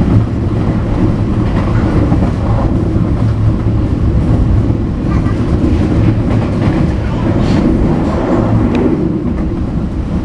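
Local economy passenger train running at speed, heard from inside the carriage: a loud, steady rumble of wheels on the rails with a few faint clacks in the second half.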